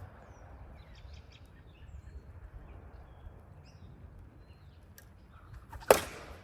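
A single sharp crack near the end, a plastic wiffle ball bat striking the ball, over faint bird chirps and low outdoor background noise.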